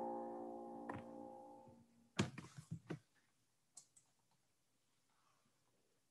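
Background music from a video fades out over the first two seconds. Then comes a quick run of computer clicks a little past two seconds in, and a single click about a second later.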